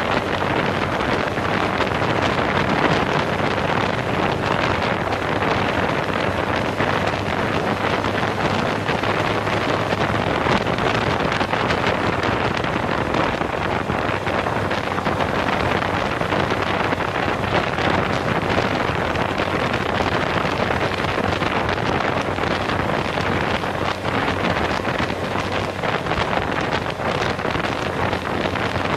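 Steady wind rush on the microphone of a handlebar-mounted camera on a moving Suzuki GSX-R600 sport bike, with the bike's inline-four engine running underneath.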